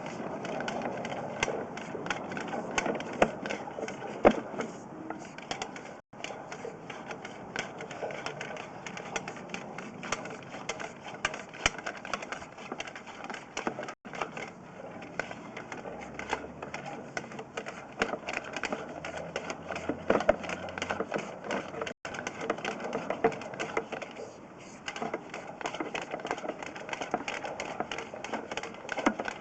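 Sewer inspection camera's push cable and reel being fed into the sewer line, making a dense, irregular clicking and rattling.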